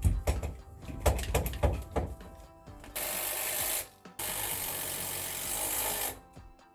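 Power drill driving screws into a wood sister joist in two runs, a short one about three seconds in and a longer one of about two seconds, after a series of knocks. Background music plays throughout.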